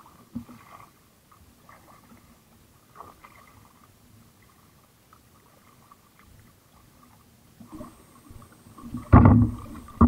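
Kayak paddle strokes: the paddle blades dipping in and splashing the water, faint and intermittent, with a much louder burst of noise about nine seconds in.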